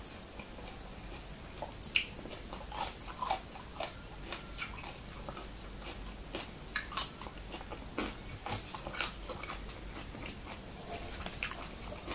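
A person chewing and biting food close to the microphone: moist mouth clicks and small crunches at irregular intervals, the sharpest about two seconds in.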